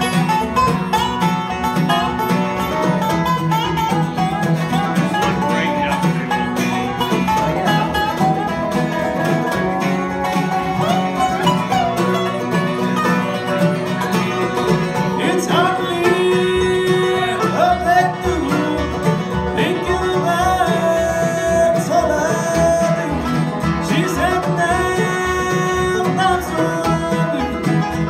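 Live acoustic bluegrass band playing: banjo, mandolin, dobro and acoustic guitar picking a song together with a steady rhythm.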